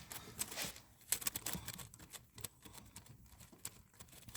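Faint, irregular light clicks and taps of rocker arms and their bolts being handled and threaded in by hand on the cylinder head.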